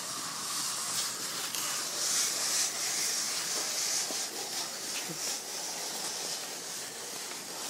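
Empty cardboard box pushed by a toddler and sliding across a concrete floor, a steady scraping hiss that swells and fades with the pushing.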